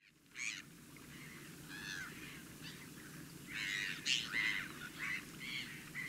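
Wild waterbirds calling: a series of short, irregular, overlapping calls that starts about half a second in and is loudest around four seconds in, over faint low background noise.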